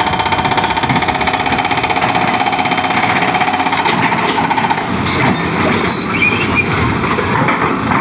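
Excavator at work, with a fast, steady mechanical hammering rattle that turns rougher and less even about five seconds in, with a couple of brief high metallic squeals.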